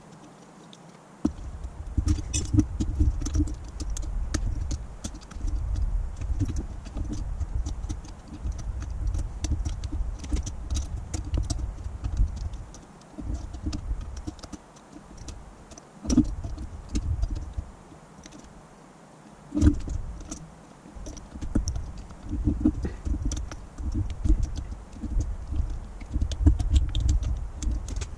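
Holley electric fuel pump's motor run on its test wires, buzzing roughly in spurts with rattling clicks. It cuts out briefly twice and starts again, giving only some function after its rebuild from seized.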